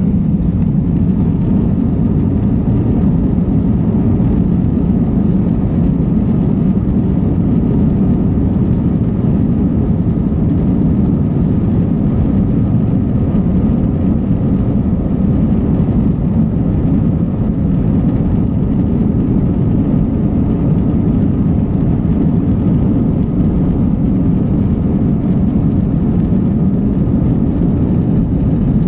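Airbus A321 twin jet engines at takeoff power during the takeoff roll, heard from inside the cabin as a loud, steady rumble.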